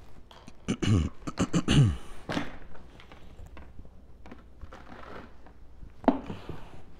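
A rotary carpet-cleaning machine, switched off, being tipped back on its wheels and handled at its pad, with a burst of creaking and scraping about a second in and a single knock near the end.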